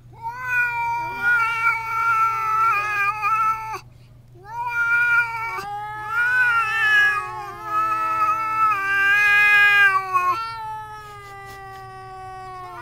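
Cats caterwauling at each other in an angry territorial standoff: long, drawn-out, wavering yowls. A break comes about four seconds in, and the last call trails off quieter near the end.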